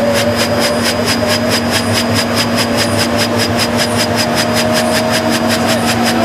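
Helicopter taking off: the rotor beats evenly about seven times a second over the steady running of the turbine engines, with a whine that rises slowly in pitch. Heard loud from on board.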